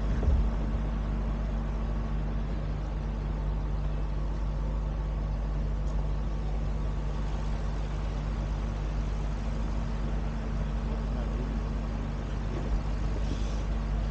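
Steady low drone of an engine running at an even speed, with a short knock just after the start and a fainter one near the end.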